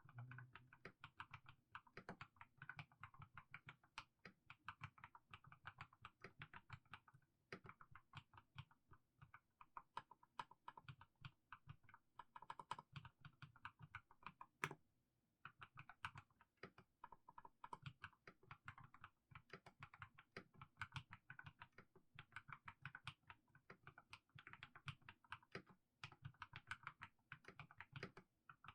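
Mechanical keyboard with fully lubed Haimu Sea Salt switches typed slowly and steadily: a quiet, continuous run of soft keystrokes, with a brief pause about fifteen seconds in and one sharper click just before it.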